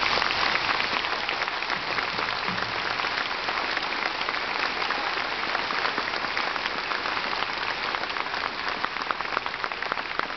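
Audience applause: many hands clapping in a dense, steady patter that thins slightly toward the end into more distinct individual claps.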